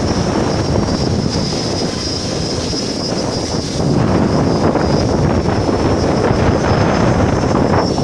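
Quadcopter's electric motors and propellers hovering with a steady high whine, under heavy wind buffeting on the microphone. The sound grows louder about four seconds in.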